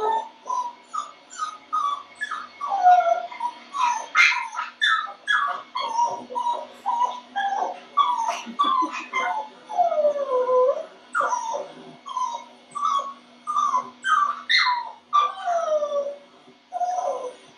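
Dog whining and whimpering: a quick, unbroken run of high whines, many sliding down in pitch, about one or two a second.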